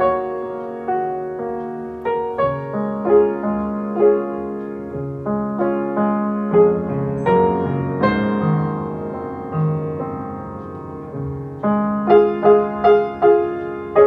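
Solo piano music: a slow melody over held chords, with a run of quicker repeated notes near the end.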